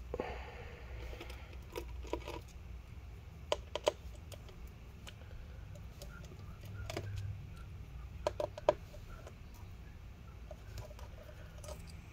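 Small clicks and taps of a precision screwdriver and tiny screws being worked out of a MacBook Pro's aluminium case. A short scrape comes at the start, then scattered single clicks, with a quick run of three about eight and a half seconds in.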